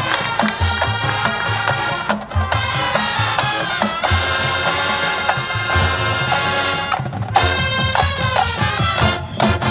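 High school marching band playing: loud brass chords over a steady beat of bass drums, with a short break in the horns about seven seconds in.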